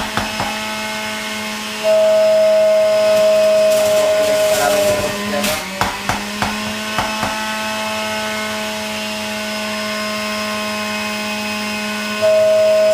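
Electric juicer motor running with a steady whine. It gets louder about two seconds in for a few seconds and again near the end, with a few knocks in the middle.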